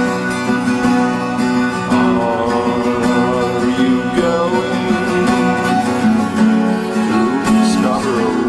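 Background music led by acoustic guitar, with steady plucked and strummed notes.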